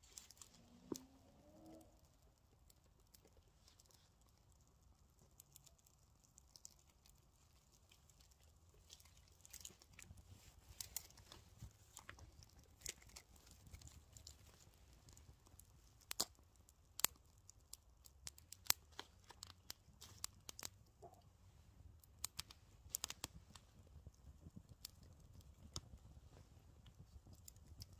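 Small kindling fire of feather sticks and dry twigs crackling as it catches, with scattered sharp pops and snaps that grow much more frequent from about ten seconds in. Dry grass and twigs rustle faintly as they are fed into the flames.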